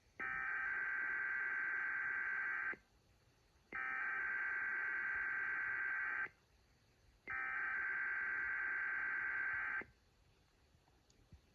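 Emergency Alert System SAME header: three identical bursts of digital data tones, each about two and a half seconds long and about a second apart, carrying the coded header that opens an EAS test message.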